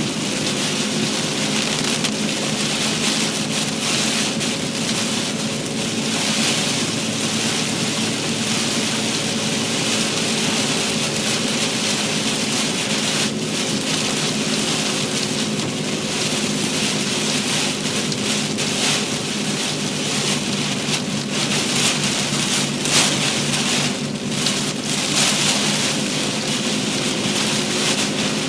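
Heavy rain hitting a car's roof and windshield, heard from inside the moving car, a dense steady hiss over a steady low engine and road hum. A few brief louder splashes or thumps come near the end.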